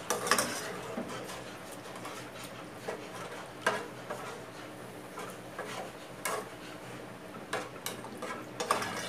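Metal spoon stirring liquid curry in a metal cooking pot, clinking and scraping against the pot's sides in irregular knocks a second or more apart, over a low steady hum.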